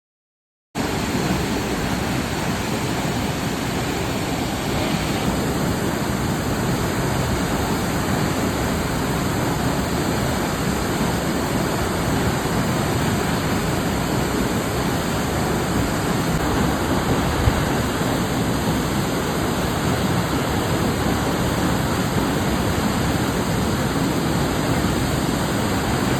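Waterfall: water falling and rushing in a steady, unbroken roar that cuts in abruptly under a second in.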